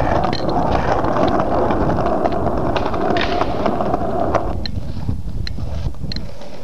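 Skateboard wheels rolling over pavement, a steady gritty rumble with scattered small clicks, which fades about four and a half seconds in.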